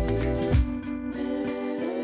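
Instrumental background music with guitar. The low drum-and-bass beat drops out about a second in, leaving the held guitar and keyboard tones.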